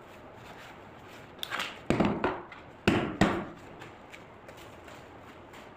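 Clattering knocks of plastic produce crates being handled, in two short bunches about a second apart.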